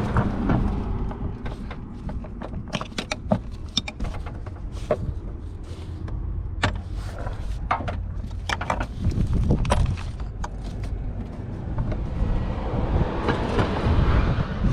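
Scattered sharp clicks and knocks of a screwdriver and hand tools on the plastic air box and its fasteners under a car hood, over a steady low rumble.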